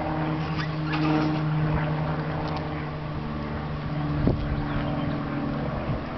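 An engine running at a steady low hum, with a few faint ticks over it.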